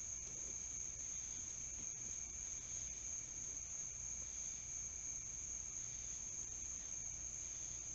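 Crickets singing in a steady, continuous high-pitched chorus, with a fainter, lower steady tone beneath it.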